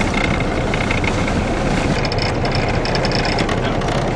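Fishing boat's engine idling steadily, a dense low rumble, with a thin high tone coming and going over it.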